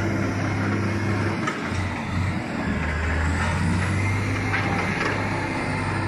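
Caterpillar wheel loader's diesel engine running under load, its low drone easing off briefly about one and a half seconds in and then picking up again.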